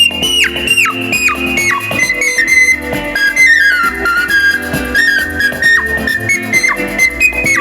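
Ocarina playing a high, flute-like melody with several quick downward pitch swoops, over a lower instrumental accompaniment.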